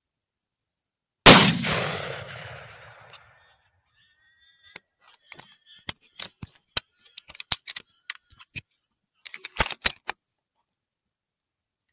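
A single rifle shot about a second in, its echo rolling away over about two seconds. From about five seconds in, a scatter of sharp clicks and taps follows, thickest near the end.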